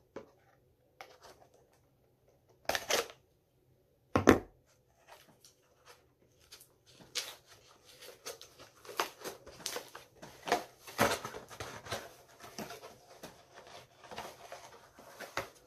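A USPS Priority Mail cardboard box being cut open with a knife, then its flaps pulled and the cardboard handled, with many short scraping and rustling strokes. There is one sharp thump about four seconds in.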